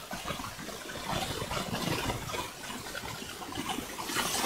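Quiet room tone: a faint steady hiss with a few small, faint scattered noises.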